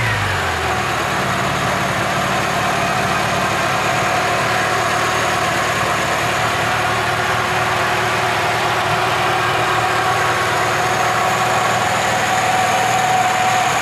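Freshly rebuilt VAZ 21213 1.9-litre eight-valve carburetted engine idling steadily just after starting, running quietly on new pistons and rings. A steady whine runs over the idle, which the owner blames on the gearbox.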